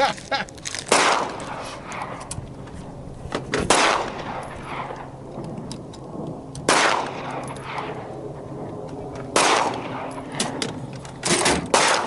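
Gunshots with echoing tails: six shots, the first four about three seconds apart and the last two close together near the end, with lighter clicks between them.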